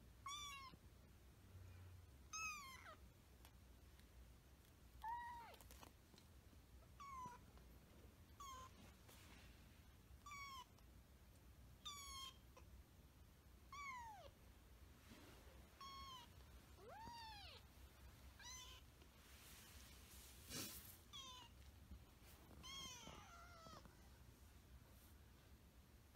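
Munchkin kitten mewing over and over: a dozen or more short, high cries about every one to two seconds, most dropping in pitch.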